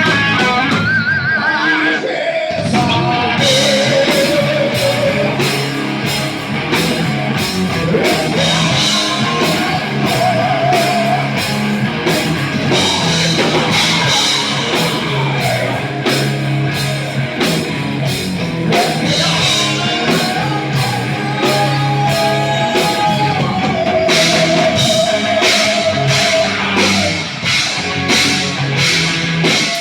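Rock music with drum kit, distorted guitar and a sung or lead melody over a steady beat.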